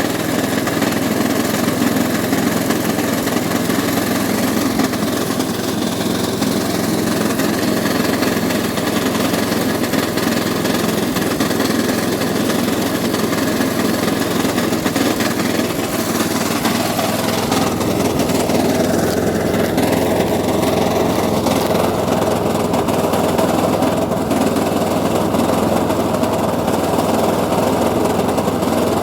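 Makita lawn mower's small petrol engine running steadily. Its pitch dips briefly and comes back up about two-thirds of the way through.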